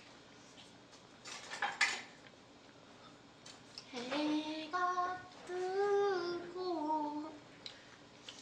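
Tableware clinking briefly about a second and a half in, then a woman sings a short run of drawn-out notes that step up and down for about three seconds.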